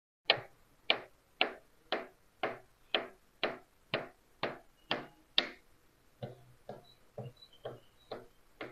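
Evenly spaced sharp ticks or knocks, about two a second, louder at first and softer from about six seconds in.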